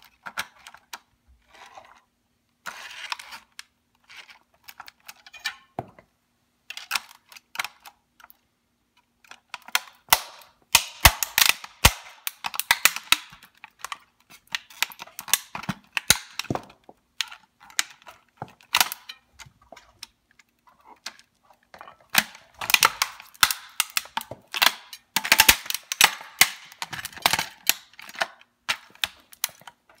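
Plastic body of a toy remote-control Hummer creaking and cracking under the weight of a platform boot sole, in rapid irregular runs of sharp clicks and snaps that come thickest in the middle and near the end as the roof gives way.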